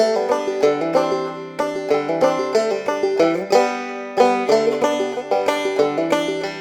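Background music: a tune of quick picked notes on a plucked string instrument.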